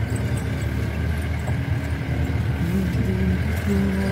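Off-road vehicle's engine running as it drives, a steady low drone heard from inside the vehicle, its pitch shifting a little in the second half.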